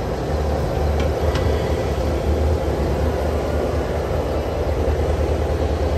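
Steady low hum and noise of a busy exhibition hall, with two faint clicks about a second in.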